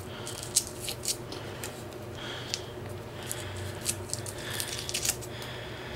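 Scattered light clicks and scrapes over a steady low hum.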